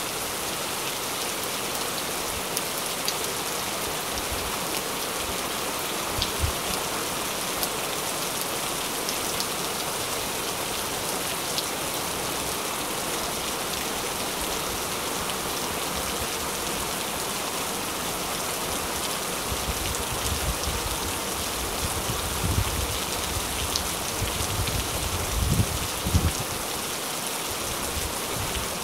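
Steady rain falling, an even hiss with scattered faint drop ticks. A few low rumbling thuds come and go in the last third.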